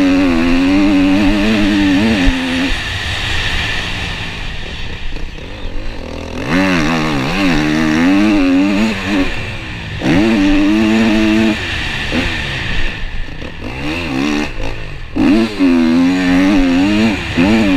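Motocross dirt bike engine heard from on the bike, revving hard in repeated bursts of throttle, each rising and falling in pitch through the gears, with lulls off the throttle between them.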